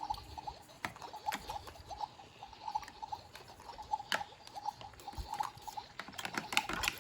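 Irregular light clicking and tapping of small plastic toy kitchen pieces being handled, many quick taps throughout.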